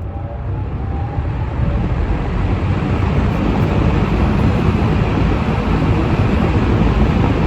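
Vintage 1970s box fan with all-metal blades starting up on medium speed. The rush of air builds steadily louder as the blades come up to speed. A faint rising motor whine fades out in the first second or two.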